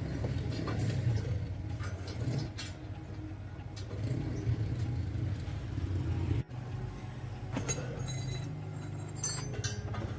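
Metal parts and tools clinking and knocking over a steady low mechanical hum.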